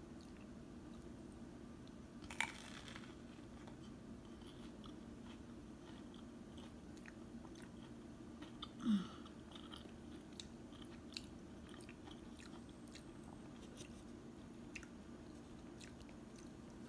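A person biting and chewing crisp toasted garlic cheese bread, with a sharp crunch about two seconds in, a louder bite near nine seconds and small crackles between, over a steady low hum.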